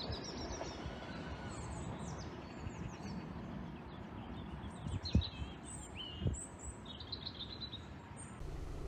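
Small birds chirping repeatedly over low outdoor background noise, with two sharp knocks about five and six seconds in. Near the end the sound changes to a steady hiss.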